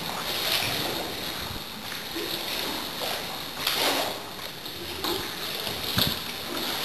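Seawater splashing and sloshing around a kayak beside a wrecked concrete ship's hull, with a few louder splashes, about half a second in, near the middle and about six seconds in.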